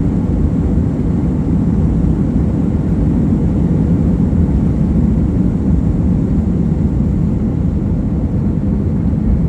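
Airplane during takeoff: a steady, loud, low rumble of engines and rushing air that holds level without rising or falling.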